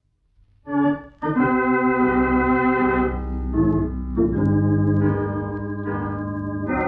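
Organ music bridge marking a scene change in an old-time radio drama. After a short silence, a brief chord comes in about a second in, then sustained chords that shift a couple of times and run on.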